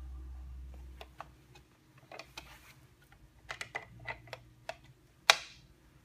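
Scattered light clicks and taps of hand tools and metal parts on a bare Ducati 1199 Panigale engine, ending about five seconds in with one sharp, loud metallic clink that rings briefly.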